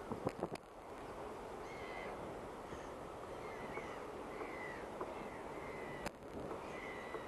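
Gulls calling repeatedly in short, slightly falling cries about once a second, over a steady harbour hiss. A few sharp knocks come near the start and again about six seconds in.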